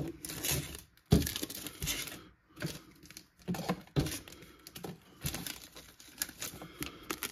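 Foil wrapper of a Topps Chrome baseball card pack crinkling and crackling as it is squeezed and flexed in the fingers, in irregular crackles with short pauses.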